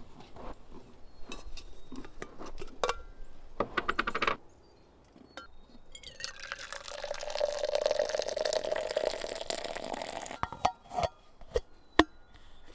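Handling clinks from a blue enamel coffee pot on a camp stove, then hot coffee poured into a metal tumbler for about four seconds from about halfway in. A few clicks follow, with a sharp click near the end as the lid goes onto the tumbler.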